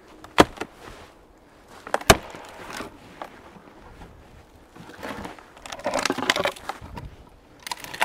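Frozen dead branches snapping with two sharp cracks in the first couple of seconds, then a longer stretch of crunching and rustling as wood is worked and shifted in the snow, with more cracks near the end.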